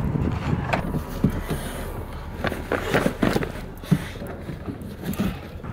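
Footsteps in snow with a series of irregular knocks and clatters as a car's boot lid is handled and lifted, ending in a sharper knock.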